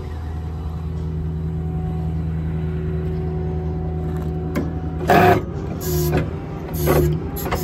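Ford F550's 6.4 Power Stroke V8 diesel idling steadily with the PTO engaged to drive the hydraulics. About five seconds in come three short, loud bursts of noise; the first is the loudest.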